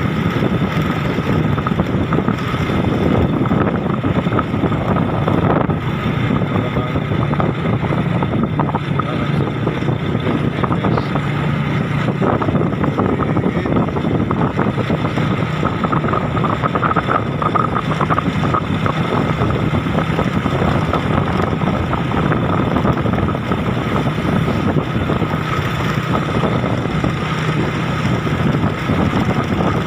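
A motor vehicle's engine running steadily while travelling, with a low hum and wind noise on the microphone.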